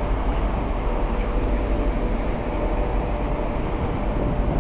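Steady low rumble of a moving ferry heard from its open deck, with wind on the microphone and a faint steady hum over it.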